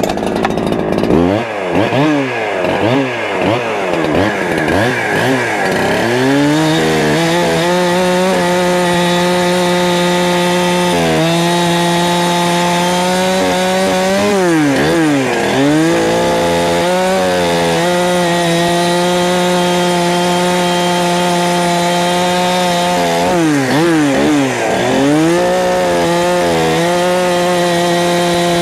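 71cc Holzfforma G372 two-stroke chainsaw blipping its throttle several times in quick rises and falls, then running at steady full revs as it cuts through firewood. The revs dip and recover a few times, about a third and half way in and again near the end.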